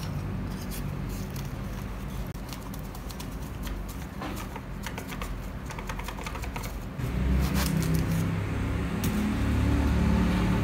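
Powdered sugar poured from a cardboard box into a small glass measuring cup: soft rustling with scattered light ticks of the box and glass. About seven seconds in, background music with a low guitar line comes in and becomes the loudest sound.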